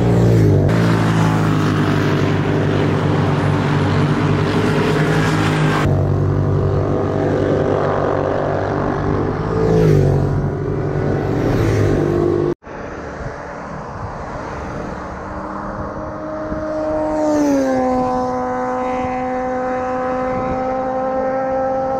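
Sport motorcycle engines running hard as bikes pass, the engine notes dropping in pitch as they go by. The sound cuts out for an instant a little past halfway. After that a single engine note drops in pitch and then holds steady.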